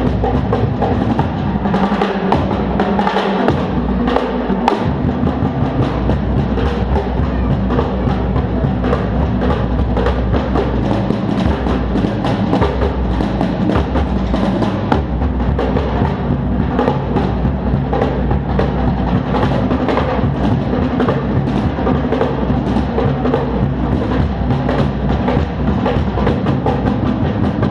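Loud live drumming, fast and unbroken, with deep drums under a dense stream of strokes, picked up by a GoPro HERO3 Black Edition's built-in microphone.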